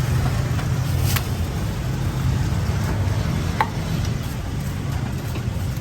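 Street traffic noise with a steady low engine rumble. Two short sharp knocks come about one second and three and a half seconds in.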